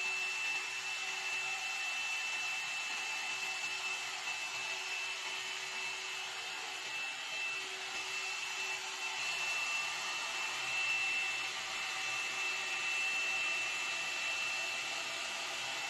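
Hot-air dryer brush running steadily: its fan blowing air, with a thin high whine over the rush, as it dries and smooths hair from the roots down the lengths.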